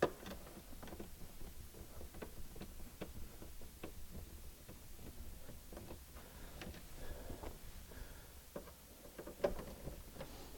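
Faint, irregular clicks and light taps of a screwdriver working on the screws and plastic trim of a dashboard switch fascia plate as it is taken off. There is a sharper click at the start and another about nine and a half seconds in.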